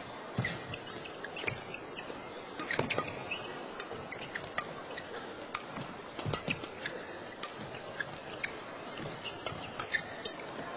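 Badminton doubles rally: sharp racket hits on the shuttlecock at irregular intervals, with short squeaks of shoes on the court floor.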